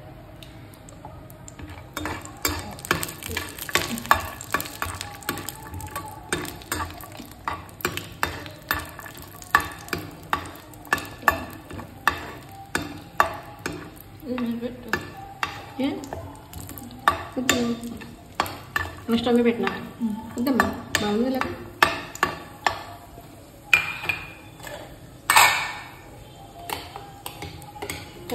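A spoon stirring dry fruits frying in ghee in a pan. It clicks against the pan about once or twice a second over a light sizzle, with one louder scrape near the end.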